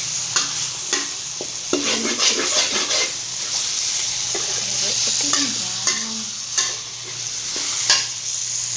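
Chicken pieces sizzling in oil and curry sauce in a stainless steel wok while a metal spatula stirs and scrapes them, with irregular scraping and clinking strokes over a steady sizzle.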